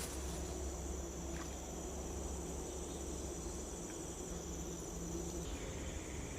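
Steady high-pitched insect chorus, like crickets, over a low steady rumble.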